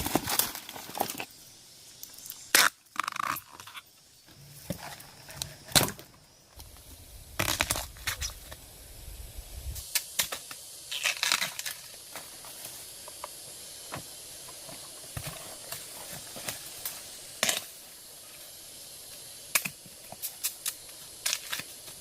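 Irregular crunching and rustling with scattered sharp knocks, and a low rumble from about a third of the way in to the middle.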